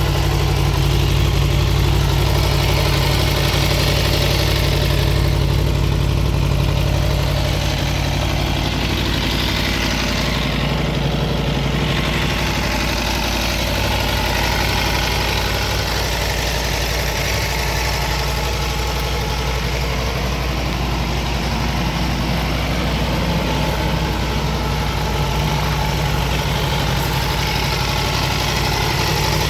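Aprilia Tuono V4 1100 Factory's 1077 cc V4 engine idling steadily.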